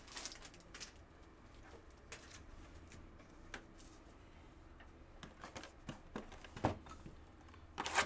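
Faint, scattered clicks and rustles of a sealed trading-card hobby box and its plastic shrink wrap being handled. They get busier over the last few seconds, and a sharper click near the end comes as a blade is put to the wrap to slit it open.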